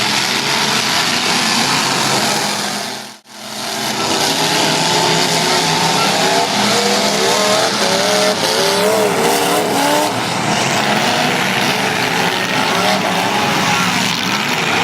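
Demolition derby cars' engines running and revving, with tires squealing in wavering tones. The sound fades out and back in about three seconds in.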